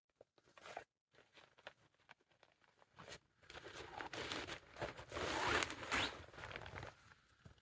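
Irregular rustling and scraping of fabric and gear being handled and pulled about, growing from about three seconds in and loudest around five to six seconds.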